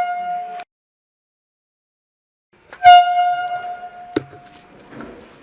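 A horn sounding two blasts, each one steady note rich in overtones. The first cuts off just over half a second in, then there is dead silence for about two seconds. The second blast starts about three seconds in and fades away over a second, followed by a sharp click.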